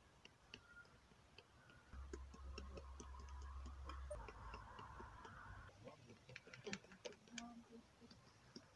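Faint, irregular light taps and clicks of a plastic toy rider figure's feet being walked by hand across a stone surface, with a low rumble from about two to four seconds in.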